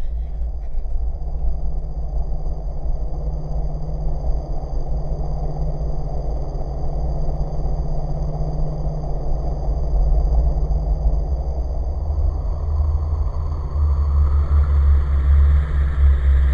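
Low, continuous rumbling drone with a few faint steady high tones held over it, swelling louder in the last few seconds: a horror film's ambient sound-design bed.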